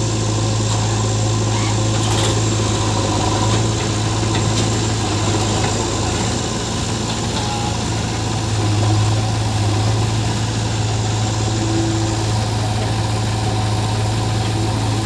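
Heavy diesel engine running steadily at idle, a constant low hum with no clear changes in speed.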